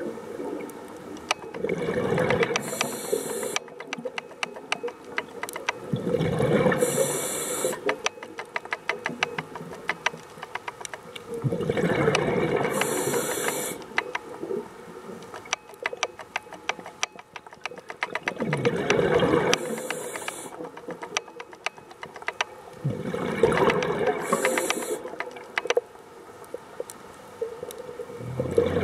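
A scuba diver's breathing through a regulator: a hiss and rush of exhaled bubbles about every five seconds, six breaths in all. Between breaths the water is filled with a constant crackle of fast clicks.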